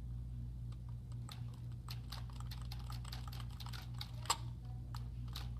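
Irregular light plastic clicks from a toy remote-control car transmitter being handled and its buttons pressed, with one sharper click about four seconds in, over a steady low hum.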